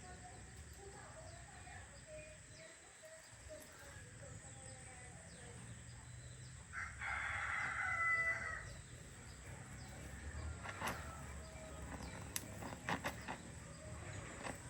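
A rooster crowing once, one call of about two seconds, a few seconds in; later a few sharp clicks or knocks.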